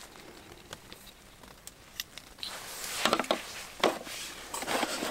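Handling noises as a wooden-handled folding knife is opened and laid on a wooden cutting board. Light clicks come first, then louder rustling with a couple of sharp knocks from about three seconds in.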